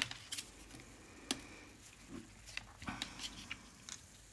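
Scattered light taps and clicks with soft rustling as paper pieces are handled and laid down on a work surface, the sharpest tap right at the start and another about a second in.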